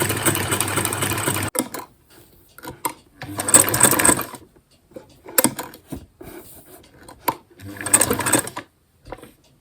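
Domestic sewing machine stitching free-motion with the feed dogs up: a steady run that stops suddenly about a second and a half in, then short stop-start bursts of stitching a few seconds apart, with small clicks between.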